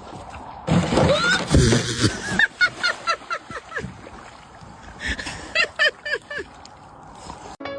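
A run of short, repeated animal calls that bend up and down in pitch, thick about a second in, then spaced out in two later bursts.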